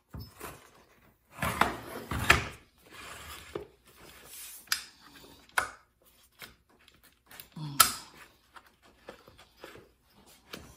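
Handling noise from a Homelite XL chainsaw's plastic housing being pushed and fitted back together by hand: irregular knocks, clicks and scrapes, the loudest around two seconds in and again near eight seconds.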